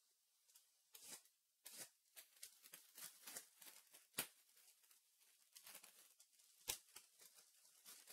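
Faint crinkling and tearing of trading-card packaging being opened by hand, with scattered rustles and two sharp clicks, the louder about four seconds in and another near seven seconds.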